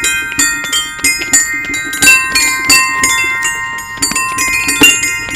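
Music carried by bell-like chimes: a quick melody of struck notes, about four a second, each ringing on.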